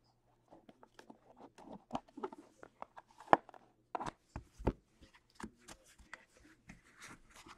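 Trading cards and their cardboard packaging handled by hand on a table: scattered light clicks, taps and sliding rustles, with a few sharper knocks about three to five seconds in.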